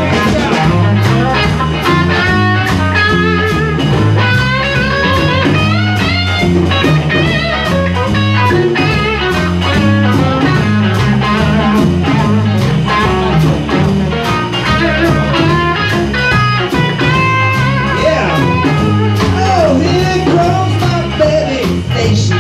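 A live blues band jamming at a steady beat, with a guitar playing lead over a stepping bass line.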